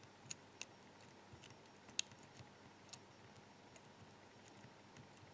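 Faint, irregular clicks of a deep hook pick lifting and setting pins in a Sargent pin-tumbler lock cylinder, the sharpest click about two seconds in.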